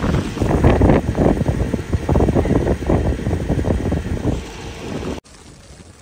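Gusting storm wind buffeting the phone's microphone, a loud uneven rumble over city traffic. It cuts off abruptly about five seconds in, leaving quieter street sound.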